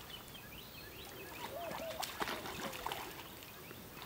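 Light water splashing as a dog paddles in a lake, with a few sharp splashes about halfway through, while birds chirp in the background.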